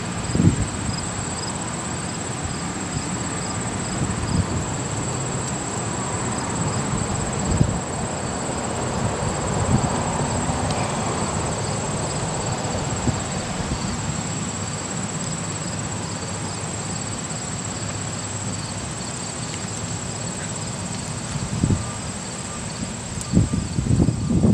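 Insects chirping steadily: regular high chirps a few times a second over a constant high-pitched drone. Gusts of wind buffet the microphone, strongest at the start and near the end.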